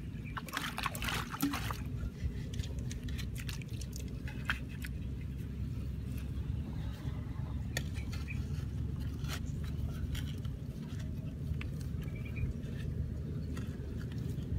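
Hands handling bamboo tubes against wet mud: scraping and rustling about a second in, then scattered light knocks and clicks of the tubes being set in place, over a steady low rumble.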